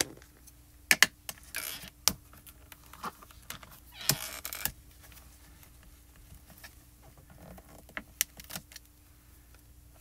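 Handling noises from stamping in a MISTI stamp-positioning tool: sharp plastic clicks and knocks as a clear stamp is inked and pressed onto cardstock. Two short stretches of rubbing come between them, the longer one about four seconds in.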